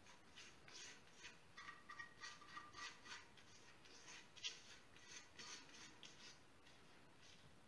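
Faint, repeated scraping of a spatula against a stainless steel mixing bowl as beaten egg whites with sugar are scraped out, in short strokes a few times a second that thin out toward the end.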